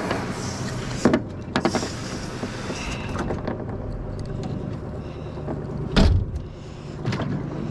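Boat motor running with a steady low hum, with sharp knocks and clatters of gear being handled about a second in, twice more just after, loudest about six seconds in and once more near the end.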